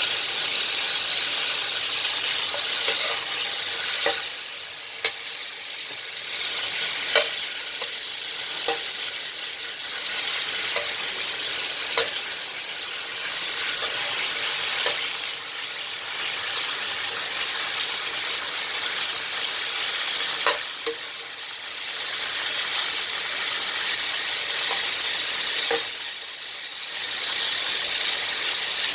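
Food sizzling in hot oil in a wok, the hiss dipping now and then, with sharp clicks of a spatula against the pan every few seconds.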